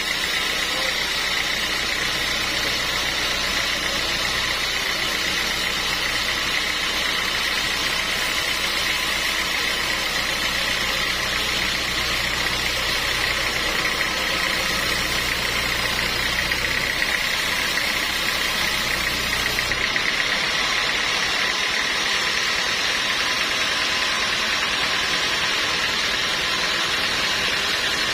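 Sawmill machinery running steadily, a constant mechanical drone with a steady high tone; its low rumble drops out about two-thirds of the way through.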